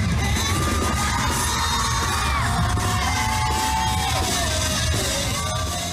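Live punk rock band playing loud, with long held sung or yelled notes over the band and the crowd yelling; it starts fading out near the end.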